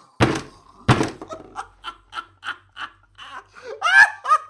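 Laughter sound effect: two heavy thuds about two-thirds of a second apart, then a run of short laughing pulses about three a second that swells into louder, pitched laughter near the end.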